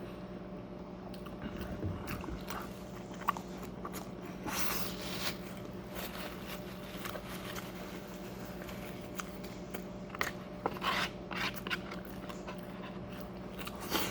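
Close-up eating sounds: chewing and mouth noises with scattered crunchy bites and scrapes, and two louder bursts of crunching a little before halfway and again about three quarters in, over a faint steady hum.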